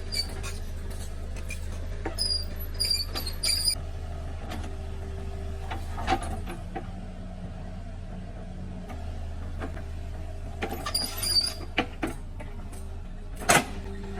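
Excavator engine running steadily, with scattered knocks and metallic clanks from the machine at work and one louder bang near the end.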